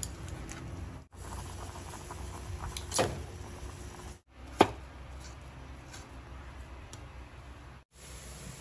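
Quiet kitchen background: a low steady hum with a couple of sharp knocks of utensils, about three and four and a half seconds in. The sound cuts out briefly three times.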